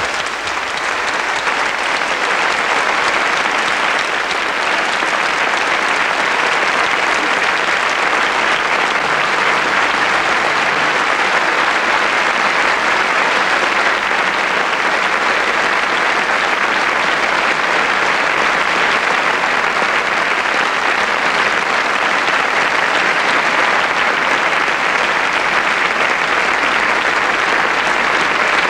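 Large theatre audience applauding steadily, a dense, even clapping that holds at the same level throughout.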